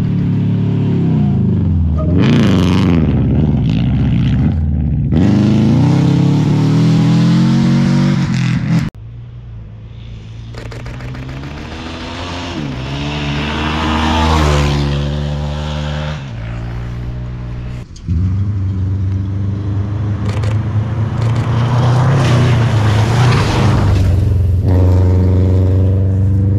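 Rally car engine revving hard, its pitch rising and falling with gear changes as it comes past. After a sudden cut about nine seconds in, a dirt bike engine revs up and falls away, quieter. After a second cut, a rally car engine runs loud again at high revs.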